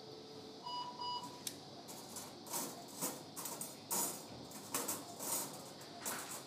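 A single electronic beep from the surgical equipment, about half a second long, just under a second in. It is followed by irregular short bursts of crackling, rustling noise.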